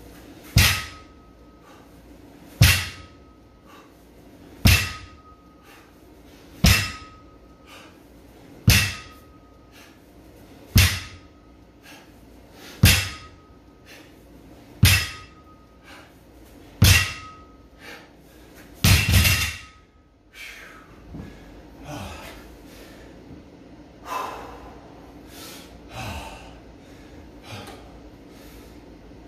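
A 135-pound plate-loaded barbell being lowered to a rubber floor mat on each deadlift rep, a thud about every two seconds with a brief metallic ring from the plates each time. After nine reps it is dropped with a rattling double bounce, followed by hard breathing.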